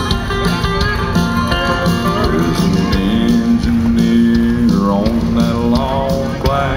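Live country band playing an instrumental break: strummed guitars over a steady bass and drum beat, with a lead line of sliding, bending notes.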